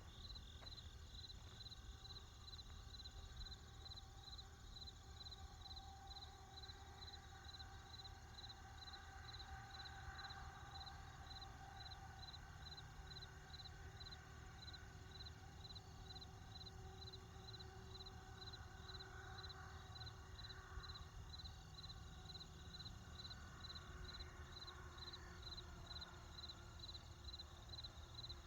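Crickets chirping steadily, about two high chirps a second, over a faint low rumble of distant traffic.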